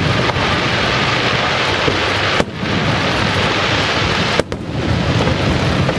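Aerial fireworks shells bursting in a dense, continuous barrage. The sound drops away briefly twice, about two and a half and four and a half seconds in.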